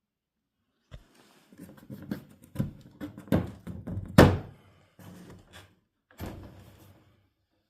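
A run of knocks and thumps, irregular, with the loudest single thump about four seconds in and a last cluster about six seconds in.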